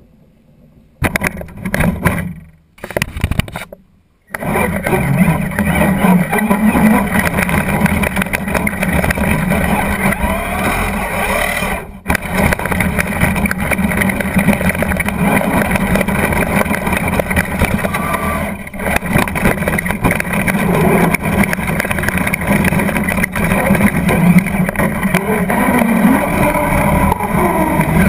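Traxxas Slash RC truck driving, heard from a camera mounted on the truck: motor and drivetrain noise over the rumble of tyres on gravel and road. It starts with two short spurts, then runs continuously from about four seconds in, dropping out briefly twice.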